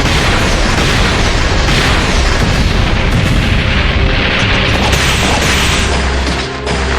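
Anime battle sound effects: a dense, continuous barrage of explosion-like booms and blasts over soundtrack music, easing briefly near the end.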